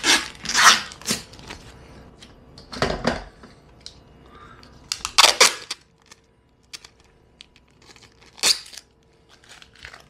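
Protective plastic film being peeled off and crinkled, in several short bursts.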